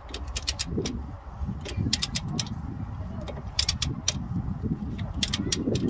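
A hand socket ratchet clicking in short runs of quick metallic clicks as the freed nut is spun off the anti-roll bar drop link stud, over a low steady rumble.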